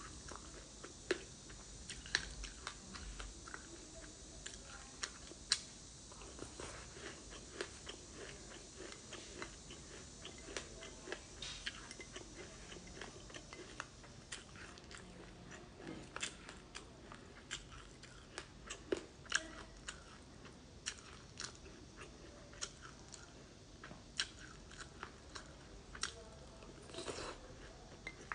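Close-up chewing and crunching of a mouthful of black sesame seeds with passionfruit: a steady, irregular stream of sharp crisp crackles.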